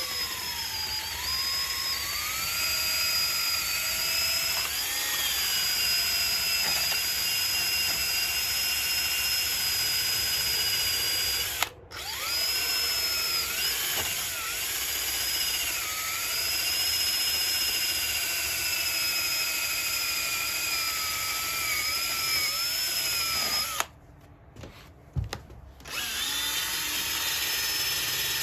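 High-speed rotary power tool whining as it sands down cured JB Weld on an ATV engine case, its pitch sagging and recovering as it is pressed into the work. It stops for a moment about twelve seconds in, and again for about two seconds near the end, before starting back up.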